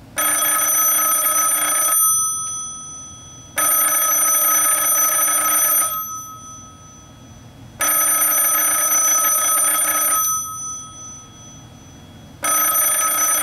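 Western Electric E1C external telephone ringer ringing in a cadence: three rings of about two seconds each with short pauses between, and a fourth starting near the end. Each ring is a steady, bright bell tone that rings on briefly after it stops.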